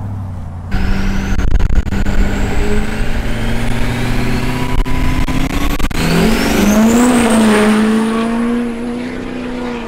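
Lifted 2001 LB7 Duramax 6.6 L turbo-diesel V8 launching into a hard full-throttle pull. The engine note jumps up about a second in and climbs with a rising turbo whistle, dips and recovers about six seconds in, then holds steady.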